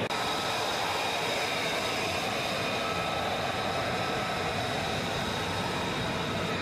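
Lockheed Martin F-35B Lightning II's F135 turbofan running at taxi power as the jet rolls past close by: a steady rushing jet noise with several high, steady whining tones.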